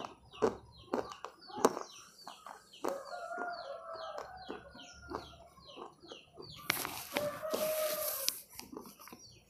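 Chickens clucking, with a repeated high falling chirp about three times a second and drawn-out hen calls from about three seconds in. Sharp mouth clicks from chewing in the first couple of seconds, and a short rustling hiss near the end.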